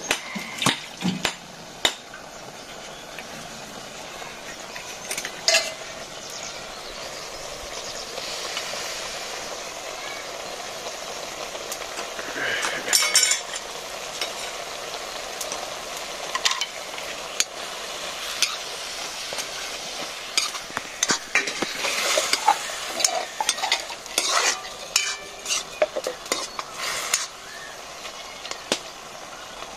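Leafy greens and tomatoes sizzling in a black wok while a steel ladle stirs them, scraping and clinking against the pan. The clinks come in clusters, heaviest midway and through the last third.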